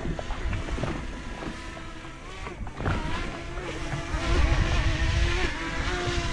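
Small quadcopter drone hovering close, its propellers whining in several stacked tones that waver in pitch as it manoeuvres, with a low rumble underneath. The whine grows louder about four seconds in.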